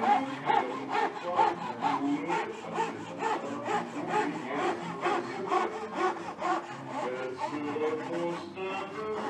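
Marquetry chevalet's fretsaw cutting through a packet of wood veneers in steady back-and-forth strokes, about two a second: the piece-by-piece cutting of a marquetry background.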